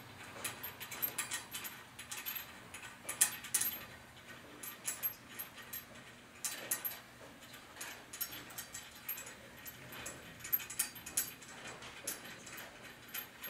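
Irregular metallic clicking and clinking of bolts, square nuts and washers being handled and turned on as the cart is assembled, in short scattered clusters of sharp ticks.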